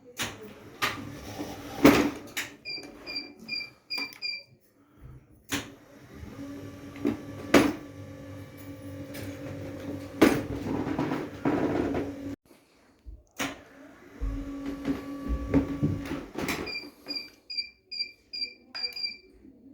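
Brooks Acorn Slimline stairlift being worked on and test-run: its drive motor hums steadily for several seconds at a time amid clicks and knocks. A run of quick, evenly spaced electronic beeps sounds twice, once about three seconds in and again near the end.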